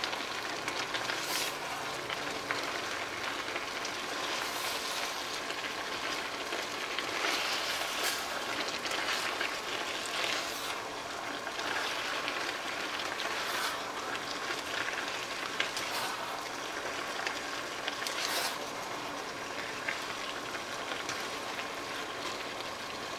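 Vegetable stir-fry sizzling in a non-stick frying pan in a bubbling cornstarch-thickened sauce, a steady frying hiss. A plastic slotted spatula tosses the vegetables with a scraping stroke every two to three seconds.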